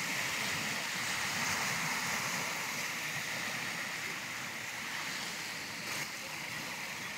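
Steady wash of small waves on the Lake Superior shore, an even rushing hiss with no breaks.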